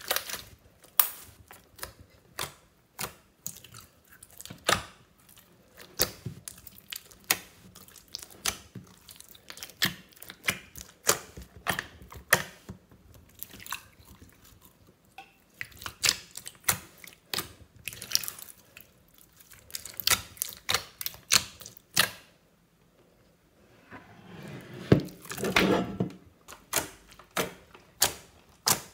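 Hands squishing and kneading a big mass of mixed slime studded with beads, giving a string of irregular wet clicks and pops. About three-quarters of the way through comes a longer squelch.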